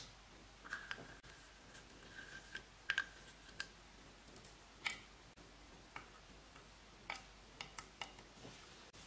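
Small plastic spatula clicking and tapping against a makeup pot and a glass baking dish while makeup is scooped out: quiet, irregular sharp taps, about a dozen, unevenly spaced.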